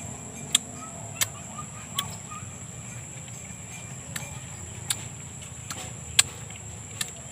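Mouth sounds of eating ripe mango by hand: sharp, wet lip smacks and sucking on the juicy flesh, coming irregularly about once a second.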